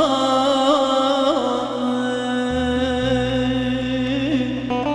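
Turkish folk song music between sung lines: a sustained, ornamented melody over a steady low drone, the drone shifting briefly in pitch about two and a half seconds in.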